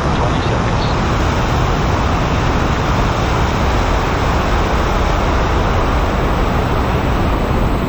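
Five-segment solid rocket booster of NASA's Space Launch System firing on a horizontal static test stand: a loud, steady rush of noise with a deep low rumble, unchanging in level.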